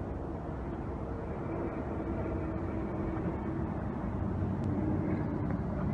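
Steady low noise of a car running on the road, with a faint engine hum.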